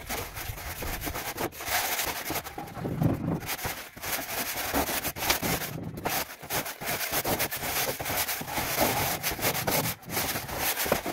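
A straightedge scraping back and forth through a bed of loose, gritty sand-cement mortar, an uneven rasping that swells and dips with each stroke, as the floor bed is screeded level for tiling.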